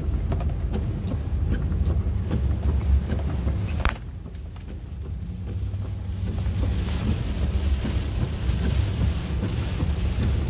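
Car driving through a flooded road, heard from inside the cabin: a steady low engine and road rumble. There is a sharp click just before four seconds, and from about six seconds on a hiss of water and rain rises under it.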